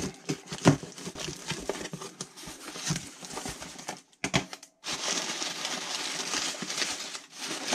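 Plastic wrap and packing tape crackling as a cardboard parcel is cut open with a pocket knife, with a sharp knock under a second in. After a short break about four seconds in, crumpled paper packing rustles steadily as hands dig through it.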